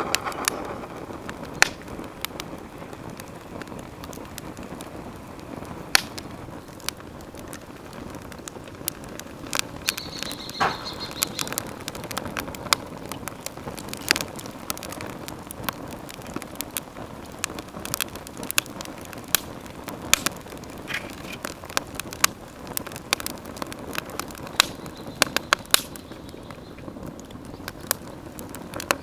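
Wood campfire burning, with irregular sharp crackles and pops over a steady low hiss of flames.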